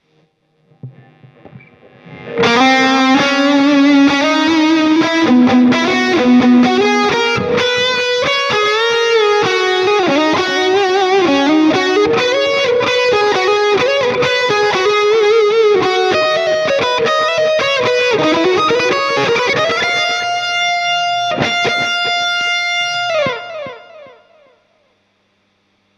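Distorted electric lead guitar solo from a Kiesel FG2 played through a HeadRush Pedalboard, guitar only with no band or vocals. After a few faint notes it comes in loud about two seconds in with fast melodic runs, bends and vibrato, then ends on a long held note that slides down and stops near the end.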